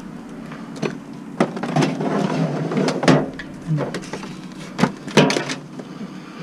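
A series of knocks and clunks as a discarded vacuum cleaner is handled, over a vehicle engine idling steadily.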